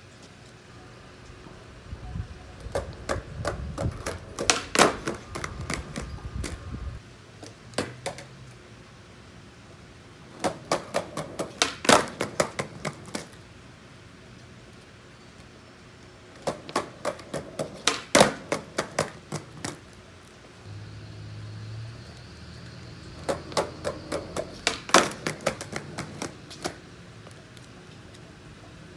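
Skateboard rolling across a concrete paver patio, its wheels clacking over the joints between the slabs in quick runs of sharp clicks. There are four such passes with quieter gaps between them.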